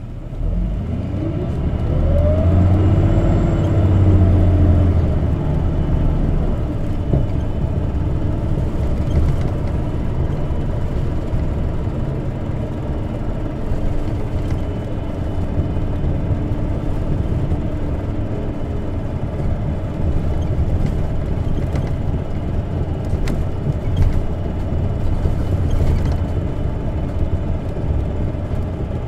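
Isuzu Erga CNG city bus heard from inside the cabin: its natural-gas engine note rises steeply as the bus accelerates in the first couple of seconds, then it runs on steadily with a low rumble as the bus cruises.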